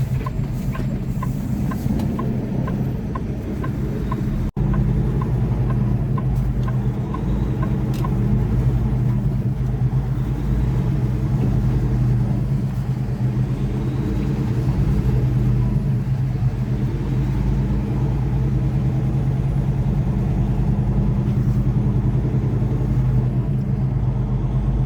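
Semi truck's diesel engine running steadily under way, heard from the cab. For the first eight seconds or so a turn signal ticks quickly and lightly, then stops.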